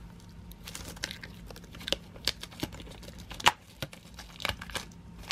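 Plastic shrink wrap crinkling and tearing as it is pulled off a steelbook disc case by hand, in irregular sharp crackles, the loudest about three and a half seconds in.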